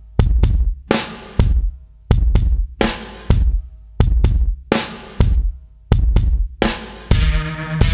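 Background music: a steady drum-kit beat with evenly spaced kick and snare hits. A sustained bass line and other pitched instruments come in about seven seconds in.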